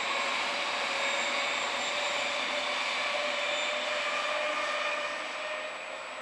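Electric passenger trains passing on the line: a steady running noise of wheels on rail with a faint whine, fading away near the end.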